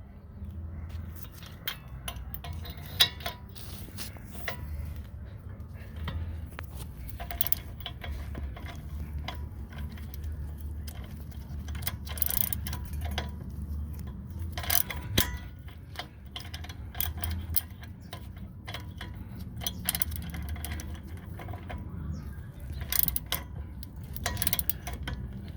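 Hand ratchet clicking in irregular runs as it backs out the brake caliper bracket bolts, with a steady low hum underneath.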